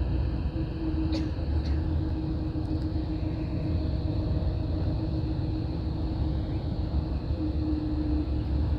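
Steady low rumble of a coach bus's engine and tyres heard from inside the passenger cabin while cruising on the freeway, with a steady hum and two faint clicks a second or so in.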